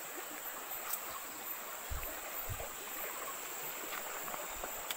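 Shallow river running over rocks and riffles, a steady rushing hiss, with a couple of faint low thumps about two seconds in.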